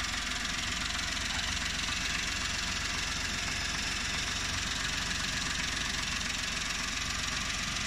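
Suzuki Every Wagon's K6A 660 cc turbocharged three-cylinder engine idling steadily, heard up close in the open engine bay.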